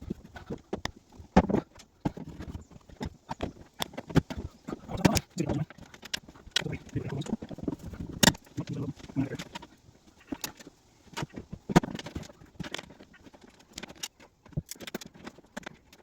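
Irregular knocks, clunks and scrapes of metal panels as a Land Rover Defender's rear seat box is pulled and squeezed into place against the body, with several sharper knocks among softer thuds and rustling.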